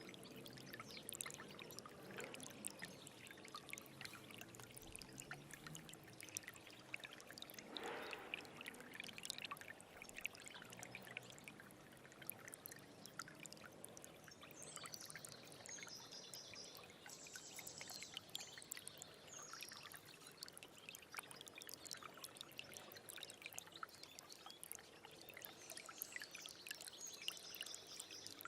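Stream of water flowing and trickling, heard faintly as a steady babble full of small splashes and gurgles, with a brief louder swell about a third of the way in.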